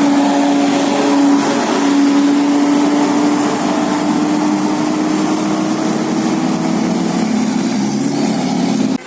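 Tour bus's diesel engine running with a steady drone over road noise, its pitch sinking lower near the end, before the sound cuts off suddenly.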